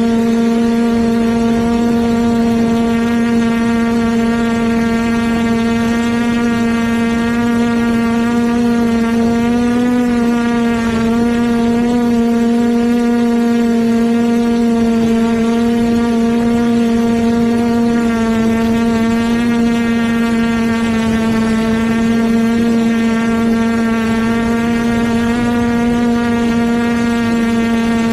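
Quadcopter's electric motors and propellers humming steadily, recorded by the camera on board, with small wavers in pitch.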